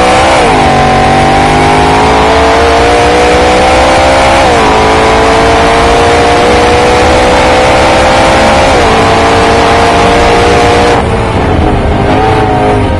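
Supercharged BMW S65 V8 breathing through an Akrapovic titanium exhaust, run hard on track. The engine note drops sharply at upshifts about half a second in, around four and a half seconds and around nine seconds, and climbs again between them. Near the end the throttle lifts and the sound falls back.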